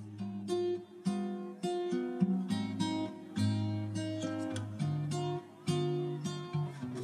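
Background music: acoustic guitar playing plucked notes and strummed chords at an easy pace.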